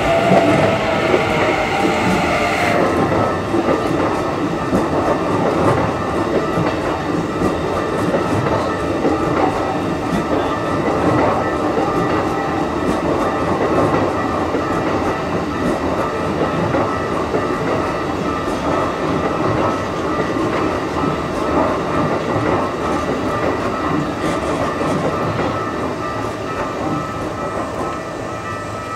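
Keikyu line electric train passing over the level crossing, its wheels clattering over the rail joints, with a falling motor whine in the first few seconds. The crossing's warning alarm rings steadily over it, and the train noise eases slightly near the end.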